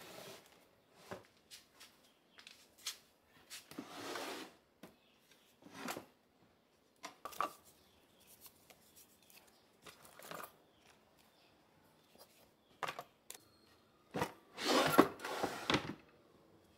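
A wicker basket and wooden drawers being slid open and shut, with scattered clicks, knocks and rustles as utensils and packets inside are handled. The longest and loudest slide comes near the end.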